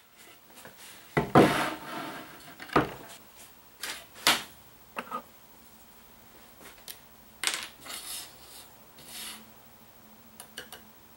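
A sheet of MDF and a steel ruler being set down and shifted on a workbench, then a compass being handled: a string of separate knocks and scrapes, the loudest about a second in.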